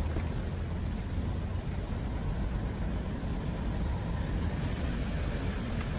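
Double-decker tour coach driving along a city street: a steady low engine rumble with traffic noise.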